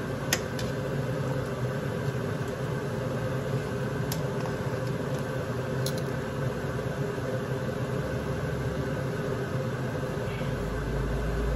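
Metal tongs clicking a few times against a large stainless-steel stockpot while moving boiled pork pieces in the broth, over a steady machine hum.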